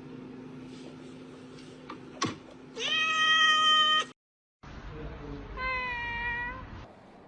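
A domestic cat meowing: one long, loud meow about three seconds in that cuts off abruptly, then a shorter, quieter meow near the end that drops slightly in pitch.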